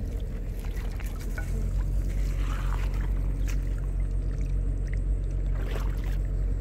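Water splashing and dripping as a person wades through shallow water carrying a wet gill net, with a few separate splashes. Under it a steady low rumble grows louder about a second and a half in.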